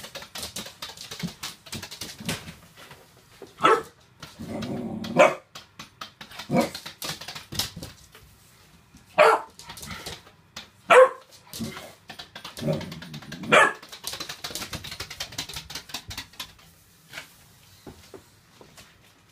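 A 3-month-old bullmastiff puppy barking in play at a push broom, about half a dozen sharp barks with a couple of longer, lower growls between them. The broom's bristles brush and scrape over the wooden floor, most clearly at the start and again after the barking.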